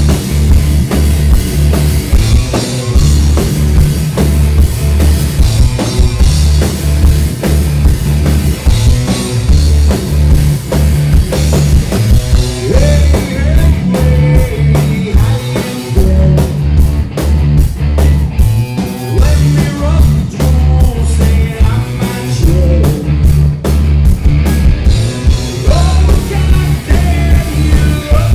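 Live rock band playing: drum kit, electric bass and a singer's vocals, loud and dense with a heavy low end.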